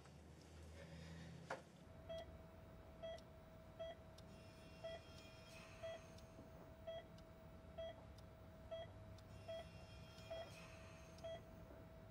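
Hospital heart monitor beeping about once a second, with a faint steady tone beneath the beeps. It is keeping time with a life-support patient's heartbeat.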